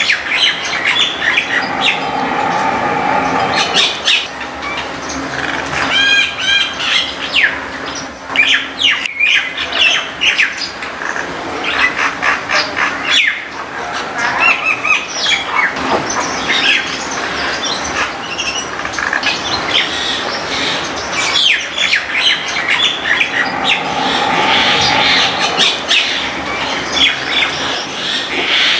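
Several backyard birds chirping and calling in many short, overlapping calls. A steady hum rises under them twice, near the start and near the end.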